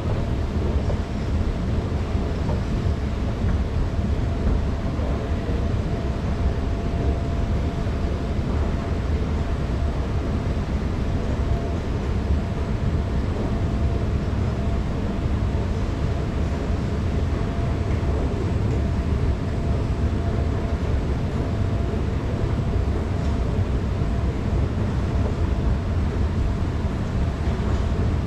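Long station escalator running: a steady low rumble with a faint, steady tone over it.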